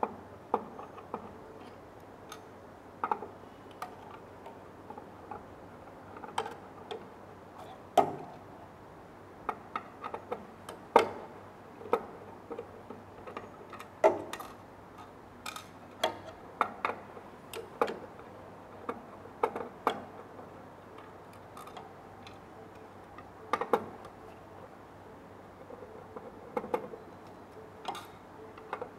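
Irregular small clicks and taps of a screwdriver working the screws of a metal print head adapter board in a UV printer's carriage as the screws are loosened.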